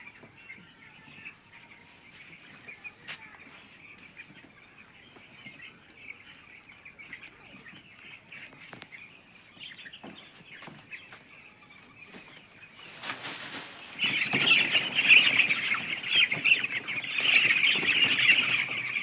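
A flock of eight-day-old chicks peeping steadily, faint at first, then much louder and denser from about two-thirds of the way in, with rustling just before.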